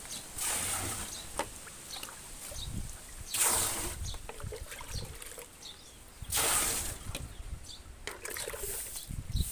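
Water poured from a plastic dipper into a drum lined with banana leaves: three splashing pours about three seconds apart, with small drips and splashes between.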